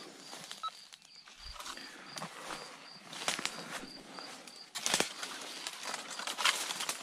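Footsteps crunching through dry leaf litter and brush, with twigs snapping; it gets louder from about three seconds in, with a sharp snap near five seconds. Behind it, a faint high pip repeats about three times a second until near five seconds in.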